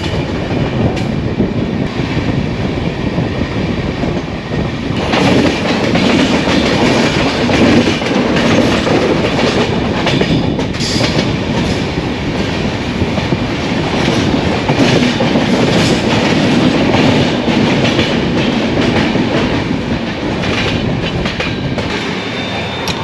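Rajdhani Express passenger coach running on the rails, heard from the coach's open side: a steady rumble and hiss with rapid wheel clickety-clack, getting louder about five seconds in as the train gathers speed leaving the yard.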